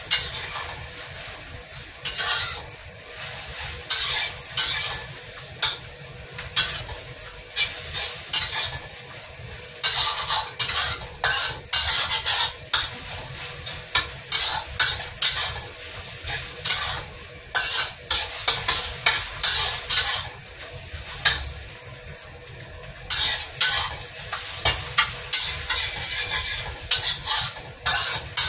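Stir-frying in a wok: a spatula scrapes and clacks against the pan in quick, irregular strokes while the food sizzles in hot oil. The stirring gets busier about a third of the way in and again near the end.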